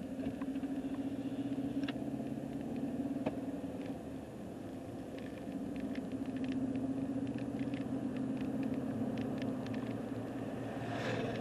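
Car in motion heard from inside the cabin: a steady engine and road hum, with scattered light rattles that come more often near the end.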